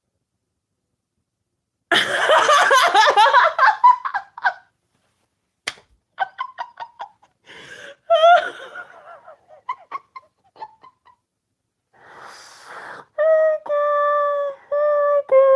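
A loud burst of laughter about two seconds in, followed by scattered short laughs and clicks. Near the end come several steady held vocal tones, broken by short gaps.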